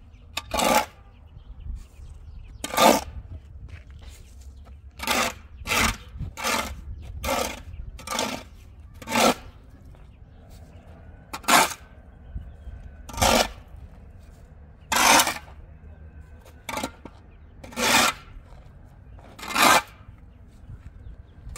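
A shovel blade scraping through a dry sand-and-cement mix on hard ground as it is turned over by hand for mortar. About fourteen separate scraping strokes come at an uneven pace.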